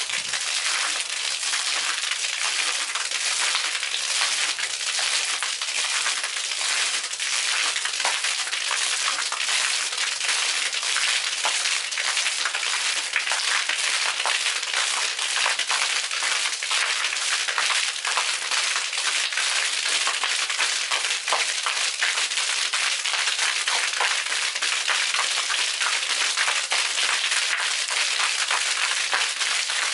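Water from a submersible arching fountain jet splashing and spattering as its broken-up stream rains down on a concrete deck and a pool. A steady hiss dense with fine crackling drops.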